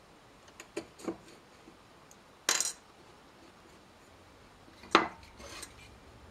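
Cherry-wood barrel staves knocking and clattering against each other and a metal hoop as they are set in by hand: a couple of light clicks, a short clatter about two and a half seconds in, and a sharp knock about five seconds in.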